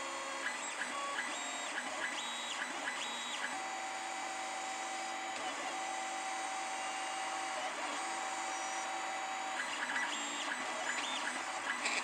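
Stepper motors of a CNC pen plotter whining as they drive the pen across a copper-clad board, the steady tones changing pitch and stopping and starting with each short move, with quick high chirps between strokes.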